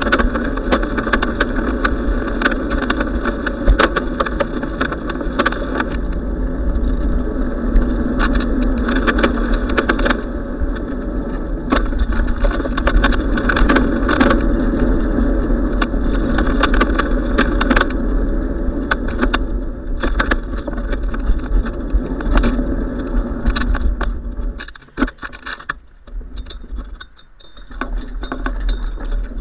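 Wind and road noise from a moving bicycle: a steady rush and rumble on the microphone, with frequent sharp clicks and rattles from bumps in the pavement. The noise drops away for a few seconds about 25 seconds in as the bike slows at a road crossing, then picks up again.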